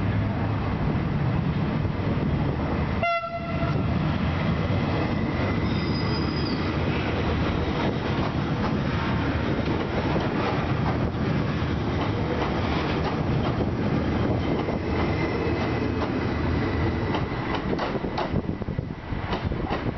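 Stadler FLIRT electric multiple unit passing along the platform: steady running noise of wheels on rail and the train's running gear, with a faint thin whine at times.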